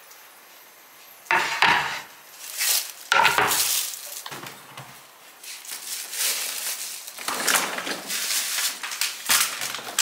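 Dishes, pots and cutlery clattering and knocking together while a kitchen is being tidied up, with the loudest clatters about a second and a half in and about three seconds in.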